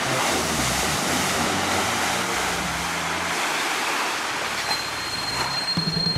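Nissan off-road 4x4 driving through a deep muddy pool, its tyres churning and splashing water over the steady run of the engine. A thin steady whistle comes in near the end.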